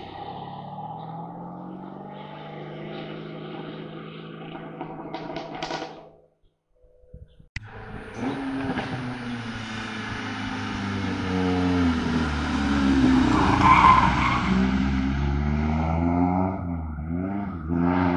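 Race car engines at speed on a hill-climb course. One car is heard at a steady pitch for about six seconds before the sound breaks off. After a short gap, another car approaches with its engine revving up and down, loudest about fourteen seconds in, then fades away near the end.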